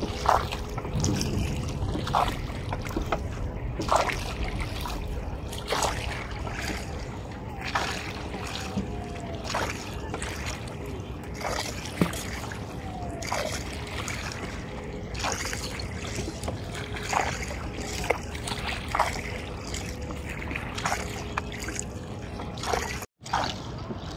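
Wooden country boat being rowed with long bamboo oars: a knock and a splash with each stroke, about every two seconds, over a faint steady hum.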